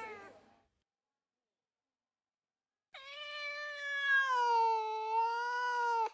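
A long cat-like meow, one drawn-out call that sinks slightly in pitch and cuts off abruptly, starting about three seconds in after a stretch of silence.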